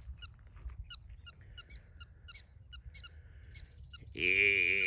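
Faint short chirps repeat two or three times a second. About four seconds in, louder Mongolian throat singing starts: a low drone with a steady, high whistling overtone held above it.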